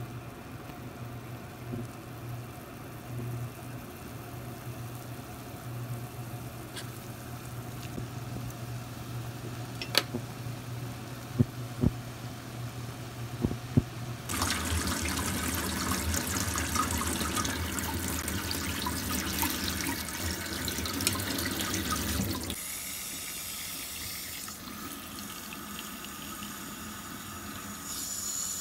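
A low steady hum with a few sharp clicks, then from about halfway through a pan of water at a rolling boil with citrus peel and pith in it, cutting off suddenly. This is a parboil-and-drain step to take the bitterness out. Near the end, water pours from a tap into a glass bowl of pith.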